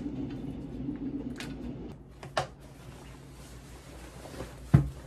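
Bag being packed by hand: handling noise with a few light knocks, and a louder thump near the end.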